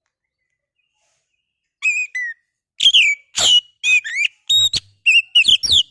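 Oriental magpie-robin (kacer) singing: after almost two seconds of silence, a quick run of loud whistled notes, with rising and falling slurs and sharp chirps.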